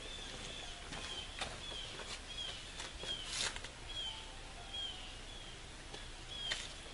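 A bird calling over and over, a short high falling chirp roughly every three quarters of a second, with a few soft clicks or knocks in between.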